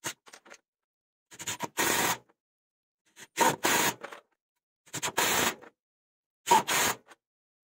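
Parkside Performance PDSSAP 20-Li B3 cordless impact driver hammering screws in a wooden beam. It runs in four bursts of about half a second to a second each, several with a quick trigger blip just before, and stops briefly between screws.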